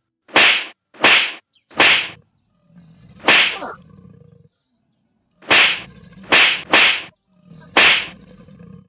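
An animal hissing in short, sharp bursts: eight hisses, four and then four more after a pause of about a second and a half in the middle.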